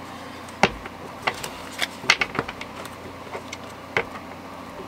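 Tarot cards and a card deck handled on a wooden table: scattered light taps and clicks, about a dozen, as cards are picked up and set down.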